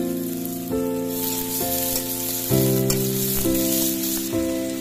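Sliced onions sizzling in hot oil in a wok, the hiss strongest in the middle, under background music whose sustained notes change about once a second.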